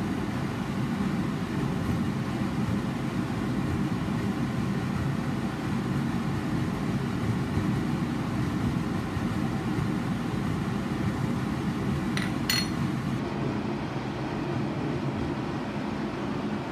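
A steady low rumbling noise, with two short clicks a little after twelve seconds in.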